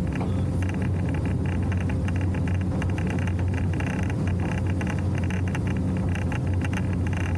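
Motorboat under way at steady cruising speed: an even, low engine drone with water noise along the hull.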